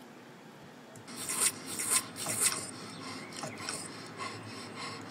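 Cartoon sound effects played back from a film's effects track: a run of scraping, rubbing strokes starting about a second in, three louder ones followed by softer ones.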